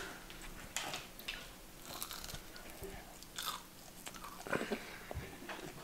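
A child biting into and chewing a piece of crispy, thinly sliced fried paddlefish, with faint, irregular crunches.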